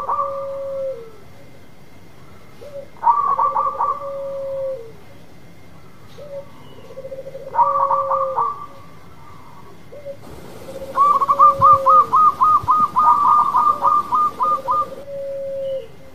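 Zebra dove (perkutut) cooing: a phrase of quick coos about every four seconds, each with a lower held note that drops at the end. Past the middle comes a longer run of rapid notes lasting about four seconds.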